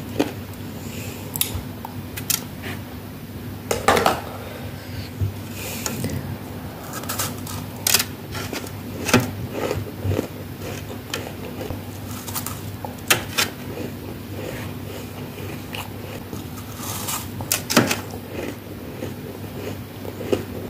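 Freezer frost being bitten and chewed: irregular sharp crunches every second or two, a few much louder than the rest.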